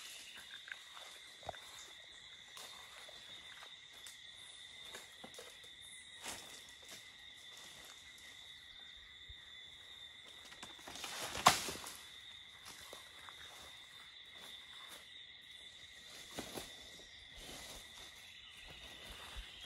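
Steady insect chirring in two high pitches, with scattered faint rustles and knocks. About eleven seconds in, a short rustle ends in one loud crash: a dry coconut spathe, worked loose with a long pole, falling through the palm fronds to the ground.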